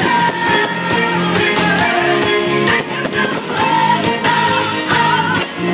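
Music: a song with a singing voice, loud and continuous.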